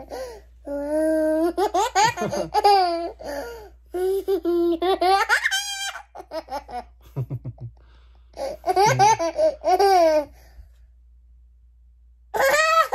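Young girl laughing hard in high-pitched fits, with a quieter pause shortly before the end.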